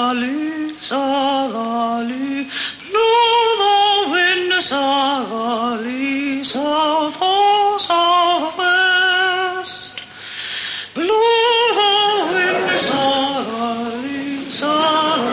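A woman singing a slow melody, with vibrato on the long held notes and a short pause for breath about ten seconds in.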